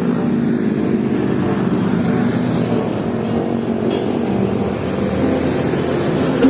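A road vehicle's engine running steadily, with traffic and road noise.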